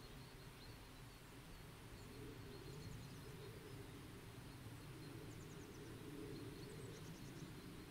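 Faint, steady low rush of distant river water, with a small bird's quick high-pitched trills three times: about a third of the way in, past the middle and near the end.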